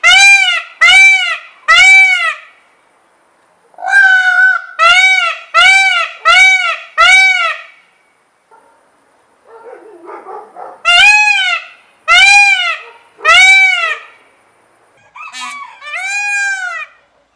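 Indian peafowl (peacock) calling loudly: short cries that each rise and fall in pitch, repeated about one to two a second in bouts of three to six, with brief pauses between bouts.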